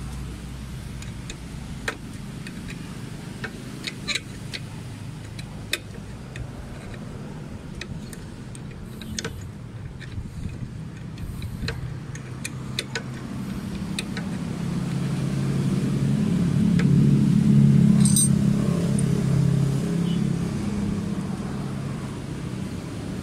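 Scattered small metal clicks and clinks from hand tools and bolts on a motorcycle's footrest and brake bracket. About halfway through, a passing motor vehicle's engine swells for several seconds, is loudest a little after the middle, then fades.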